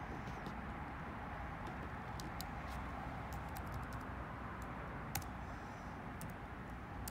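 Light, irregular tapping clicks on a phone's touchscreen, one sharper click about five seconds in, over a steady background hiss.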